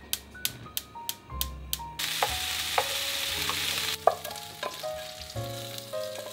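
Chicken breast pieces frying in a pan: a loud sizzle for about two seconds midway, dropping to a faint sizzle after. Background music with short notes plays throughout.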